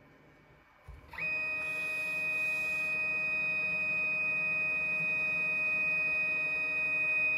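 Coater drive of a 2Create metal 3D printer running as the coater blade sweeps around the building platform, spreading powder and clearing the plate. It starts about a second in with a quick rise in pitch, then holds a steady high whine.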